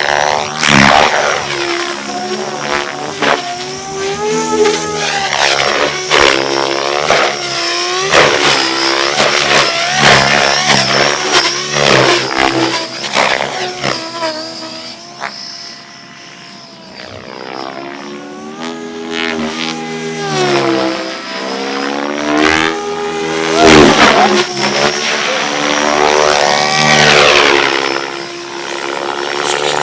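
RC helicopter's engine and rotor in flight. The pitch keeps rising and falling as it manoeuvres, under a steady high whine. It fades for a few seconds about halfway through, then comes back loud.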